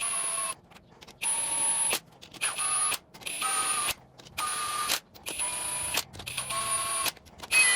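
Cordless power ratchet running engine bolts down in about eight short whining bursts with brief pauses between them, snugging the bolts in a cross pattern before final torquing.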